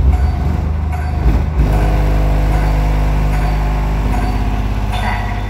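Two Bomber Upgrade 12-inch car subwoofers (350 W RMS) playing loud, deep bass, heard from outside the car, with a falling sweep about a second and a half in.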